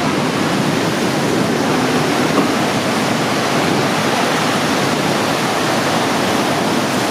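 The Rhine Falls and the churning whitewater at their foot: a loud, steady rush of water.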